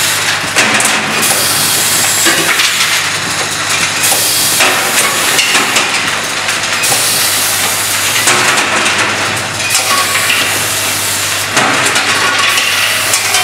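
Automatic assembly machine for caps and inserts running: a steady low hum under a continuous dense rattling and hissing of parts and machinery.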